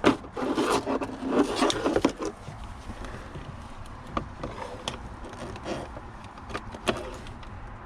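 Hand tools clicking and scraping against screws and metal parts. A busy stretch of scraping and rattling comes in the first two seconds, followed by scattered single clicks.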